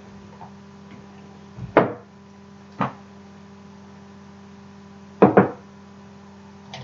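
A few sharp knocks of containers being set down on a table: one, another about a second later, then a quick pair near the end.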